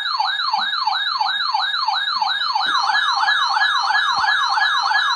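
Electronic siren-style alert alarm from weather alert radios sounding for a required weekly test. It is a fast, loud up-and-down sweep, about four times a second. About three seconds in, a second alarm joins slightly out of step with the first.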